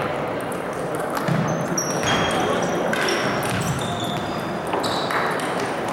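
Table tennis rally ending: a few sharp clicks of the ball on bats and table, then brief high squeaks of shoes on the court floor. Low murmur of voices in a large hall.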